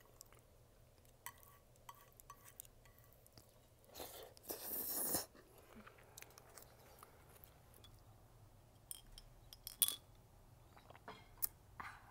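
Close-up eating sounds: enoki mushrooms being slurped and chewed, with small wet mouth clicks. A loud slurp about four seconds in lasts about a second. A few sharp clicks come near the end as the wooden chopsticks are set down.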